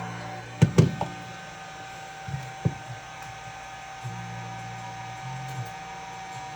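Heat gun blowing steadily with a constant hum and whine, warming the phone to soften the battery adhesive. A few sharp knocks and taps cut through it just under a second in and again around two and a half seconds in.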